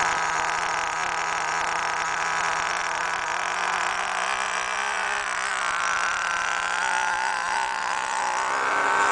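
HPI MT2 nitro RC truck's small two-stroke glow engine running at high revs: a high-pitched whine that rises and falls in pitch with the throttle. It gets louder near the end as the truck passes close.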